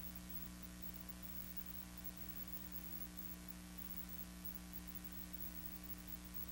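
A steady electrical hum over a faint, even hiss, with no other sound: the background noise of an old film soundtrack.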